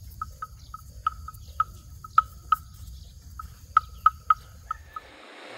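Outdoor animal chorus: short chirping calls repeat irregularly, a few per second, over a faint steady high insect drone and a low rumble. It all fades out near the end.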